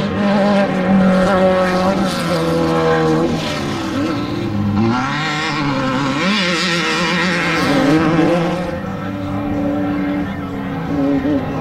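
Off-road desert race vehicles' engines running at high revs. The pitch holds steady at first, then rises and falls with the throttle, with a louder rush of noise a little past the middle.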